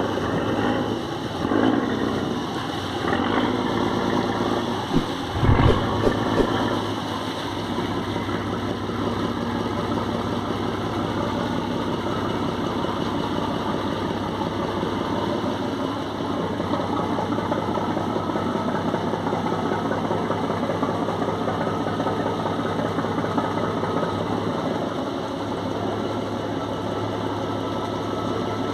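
A boat's engine running steadily at an even speed, with a few low bumps in the first several seconds.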